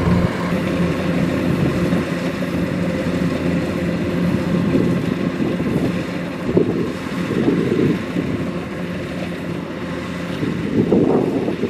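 Kubota DC-105X combine harvester's diesel engine running steadily, swelling louder for a few moments about two-thirds of the way through and again near the end.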